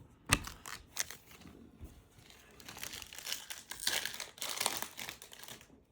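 Foil trading-card pack wrapper crinkling as it is torn open, with a sharp click about a third of a second in and the densest crinkling in the second half.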